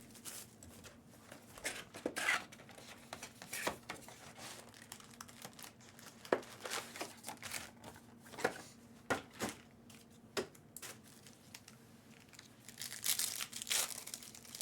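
Trading-card box packaging being torn open and crinkled by hand: scattered sharp crackles and snaps, with a longer stretch of rustling near the end.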